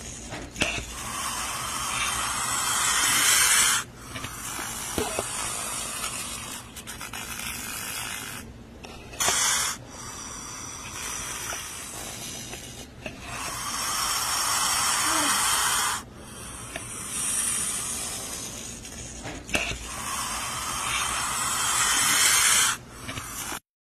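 Snake hissing in a series of long hisses, each swelling louder over a few seconds and then cutting off abruptly, about seven in a row.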